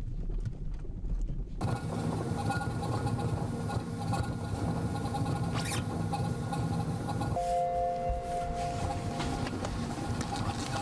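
Car shaken on a vibration test rig under its wheels: a steady low mechanical rumble with fast rattling patter, starting abruptly about a second and a half in. A steady two-note hum joins it for about two seconds in the second half.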